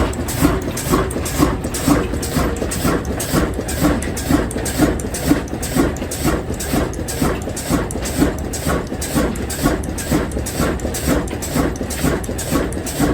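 Diesel engine running with a slow, even beat of about two to three pulses a second.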